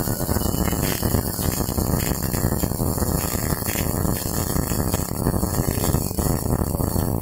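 MIG welding arc crackling steadily as a 3G (vertical) test weld is run.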